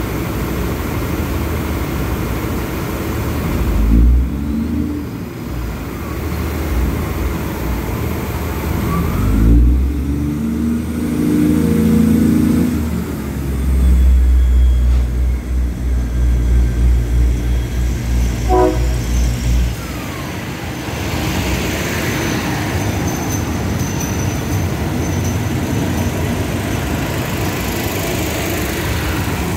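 Diesel railcar train pulling away from a station platform. The underfloor diesel engines rev in a low drone that swells in stages over the first twenty seconds, then the cars roll past with a steady rush of wheel and rail noise.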